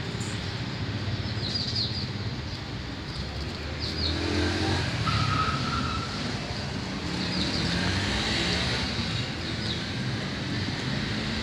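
Street traffic noise dominated by a motor vehicle engine running nearby, a steady low rumble that swells about four seconds in and stays up for several seconds, with short bird chirps scattered through it.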